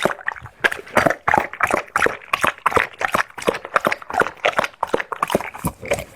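A dog eating from its bowl: quick, irregular clicks and crunches, several a second.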